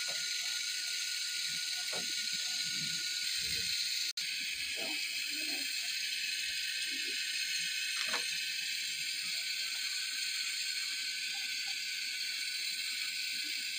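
Steady hiss of a pan of milk boiling hard on a gas stove, with a few faint knocks and a tap about eight seconds in.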